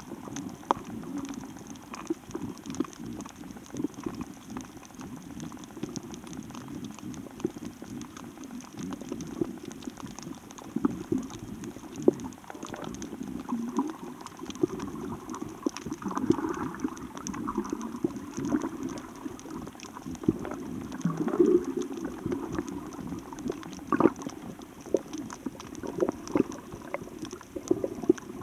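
Seawater bubbling and sloshing, with a dense crackle of small clicks and a few sharper knocks later on.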